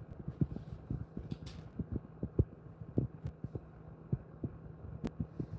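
Soft, irregular low thumps, several a second, from a dog being brushed while lying on a raised mesh cot bed, over a steady low hum.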